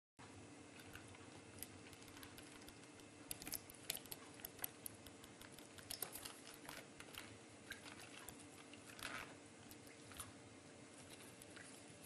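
A budgerigar bathing in a shallow plastic tub of water among wet lettuce leaves: irregular soft splashes, drips and light clicks of its feet and wings against the water and plastic, clustered a few seconds in and again near the middle, over a faint steady hum.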